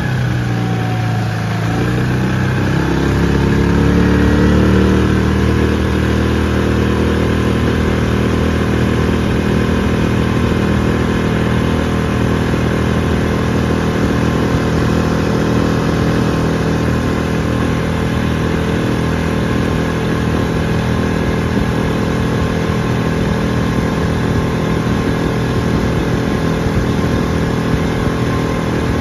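5 hp Coleman outboard motor running under way. It rises in pitch over the first few seconds, then holds a steady throttle.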